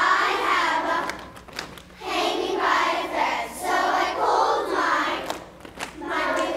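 A class of young children singing together in unison, in phrases broken by short pauses.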